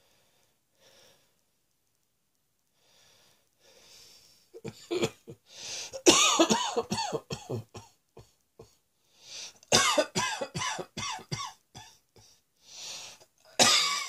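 A person coughing in three fits of rapid, hacking coughs, each drawn in with a sharp breath, after a few faint breaths at the start.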